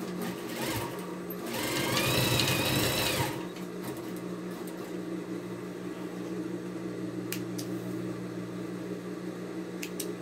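Electric domestic sewing machine running a quilting seam through layers of fabric and batting, a steady motor hum and needle run that gets louder for a second or so about two seconds in.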